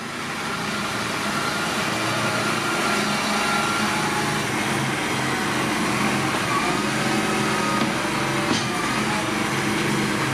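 The Fendt 211 Vario's three-cylinder 3.3-litre AGCO Power diesel running steadily under load while the front loader lifts and tips a grab of manure, with one brief knock about eight and a half seconds in.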